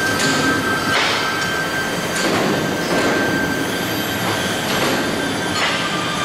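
Automatic air duct production line running: steady machinery noise with a thin steady whine and a few sharp knocks.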